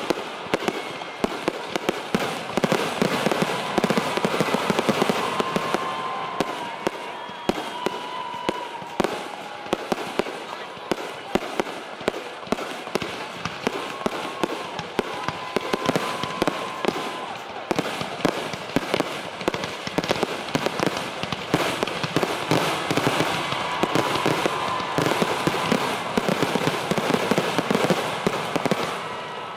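Fireworks display going off continuously, a dense run of rapid crackles and bangs.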